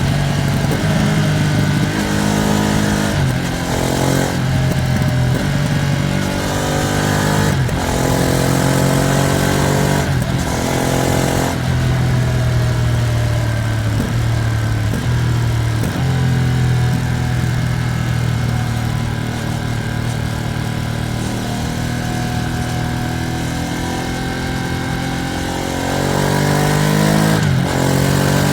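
Ducati Streetfighter V2S V-twin engine under way, pulling up through several gears, each rise in pitch cut off by a sharp drop at the shift. Then it holds a steadier, slowly falling note before picking up again near the end. The engine is still being run in.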